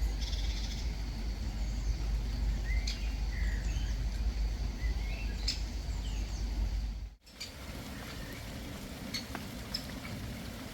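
Garden birds chirping, with short sharp calls and brief warbled notes, over a steady low rumble. About seven seconds in the background cuts off abruptly and gives way to a quieter, different low hum while the chirps go on.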